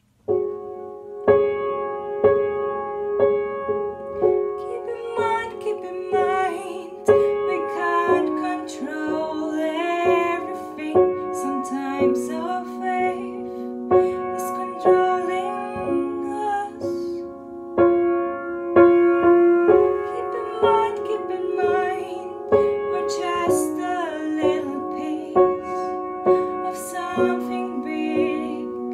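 A woman singing a slow song to her own Boston upright piano accompaniment. The piano chords start right away, and her voice comes in about four seconds later.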